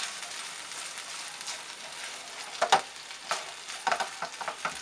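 Chicken pieces coated in mayonnaise and chili garlic sauce sizzling in a non-stick frying pan while a spatula stirs them. The spatula scrapes and knocks against the pan, once loudly a little before three seconds in and several times in quick succession near the end.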